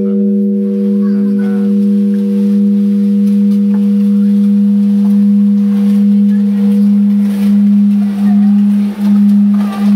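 Large Japanese temple bell (bonshō) ringing on after a strike from its swinging wooden beam: one deep, steady hum that swells and fades slowly, while its higher ringing overtones die away over the first few seconds.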